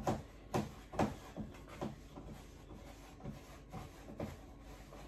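A spoon stirring okpa flour and palm oil in a bowl, scraping and knocking against the bowl about twice a second. The strokes are loudest in the first two seconds and grow fainter.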